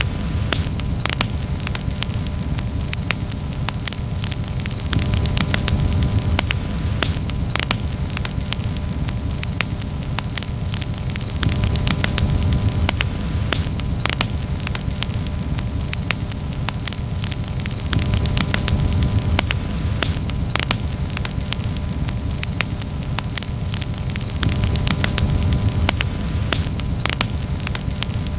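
Wood campfire burning and crackling, with frequent sharp pops and snaps over a low steady rumble of flame.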